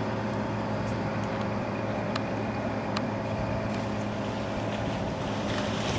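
Small work tug's engine running with a steady low hum as it moves along the river, with two brief clicks a little after two and three seconds in.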